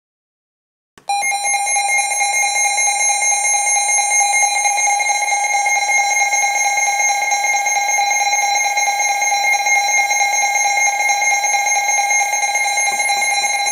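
Emergency Alert System attention tone: a loud, steady electronic alarm tone that starts about a second in and holds unchanged, signalling that an emergency alert message is about to be read.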